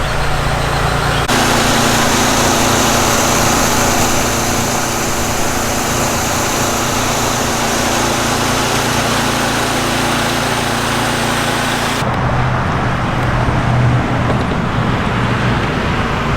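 Pressure washer's petrol engine running steadily, with the hiss of the spray over it. The sound shifts abruptly about a second in and again near the end, where the hiss drops away and the engine hum stands out.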